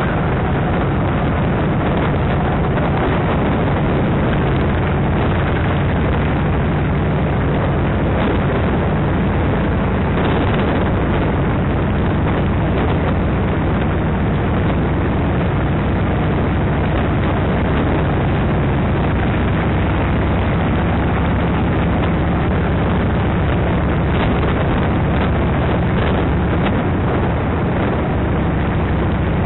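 Motorcycle engine running steadily at cruising speed, a constant low drone mixed with heavy wind rush on the microphone.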